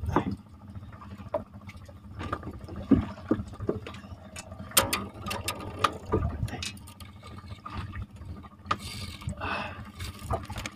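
Water splashing and dripping, with scattered knocks and clatter on the wooden boat, as a hooked fish is hauled in on a handline and brought aboard.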